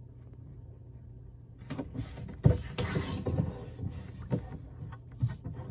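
Square of origami paper being folded diagonally in half and creased by hand: paper rustling and sliding against a hard tabletop, with a sharp tap about two and a half seconds in and a few lighter taps after.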